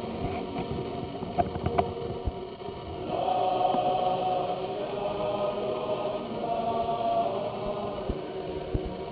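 Male choir singing, holding long sustained chords that change every second or so. Two short sharp clicks come about one and a half seconds in.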